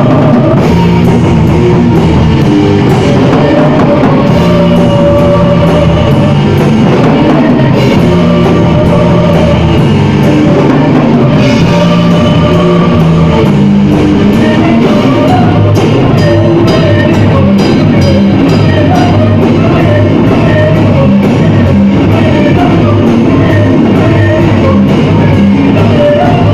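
A gothic metal band playing live: a drum kit and distorted guitars pounding on in a steady rhythm, very loud and dense.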